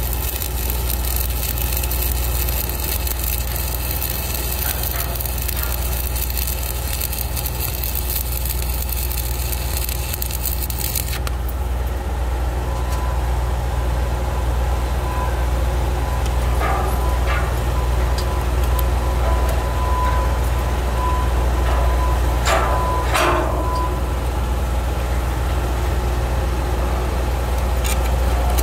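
Shielded metal arc (stick) welding with a 1/8-inch Lincoln Excalibur 7018 rod at 126 amps: the arc crackles steadily for about the first eleven seconds, then cuts off sharply as the rod is broken away. A steady low hum runs underneath throughout.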